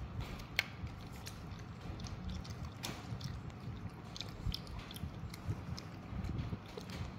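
A macaque chewing and biting food, with scattered small clicks as it picks at the pieces in its hands.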